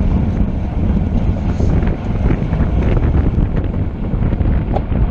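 Wind buffeting the microphone: a loud, steady low rumble with faint scattered ticks over it.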